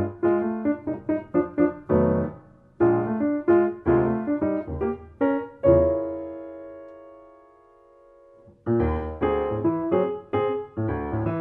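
Solo piano playing a jazz-inflected Brazilian instrumental in short, rhythmic chords over bass notes. About six seconds in, one chord is held and rings out for about three seconds before the playing starts again.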